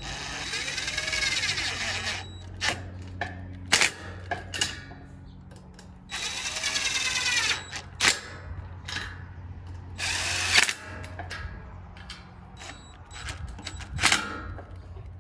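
Cordless drill/driver running in three short bursts as it drives the bolts that hold the wire fan guard to the condenser fan motor. Its whine rises and falls with each pull of the trigger, and there are sharp clicks and knocks between the runs.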